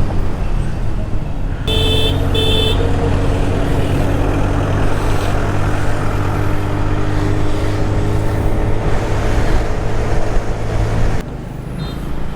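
Motor scooter running at speed in traffic, a steady engine hum under road noise. Two short horn beeps about two seconds in, and the noise drops suddenly about a second before the end.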